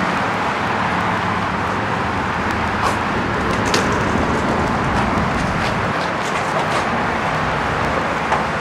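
Steady outdoor street noise of passing road traffic, with a few faint short clicks in the middle.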